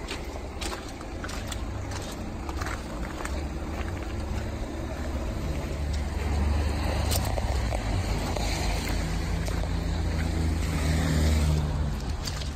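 A motor vehicle's engine running nearby: a low steady hum that swells louder about halfway through and eases off near the end. Scattered short crunches of footsteps on gravel run alongside it.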